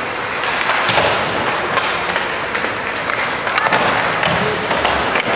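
Ice hockey play on a rink: a steady noisy din of skates on ice, broken by many short knocks and clacks of sticks and puck.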